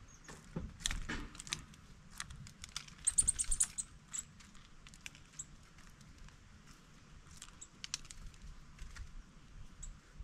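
Small birds pecking and tapping at a wooden bird feeder: irregular sharp clicks and knocks, with a quick run of high, sharp ticks about three seconds in.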